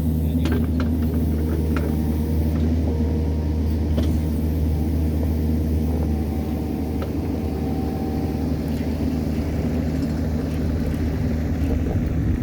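Diesel engine of a Kubota KX71 mini excavator running steadily, with a few faint clicks over it.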